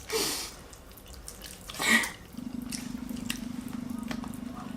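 Mouth sounds of eating spaghetti: two short slurps, one at the start and one about two seconds in, followed by a steady low hum that lasts the rest of the time.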